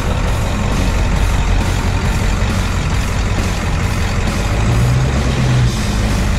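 7.3 Powerstroke turbo-diesel V8 of a Ford Bronco running at low trail speed, heard close from low on the body beside the front tire, with a steady rush of noise over the engine. The engine note grows stronger for about a second near the end.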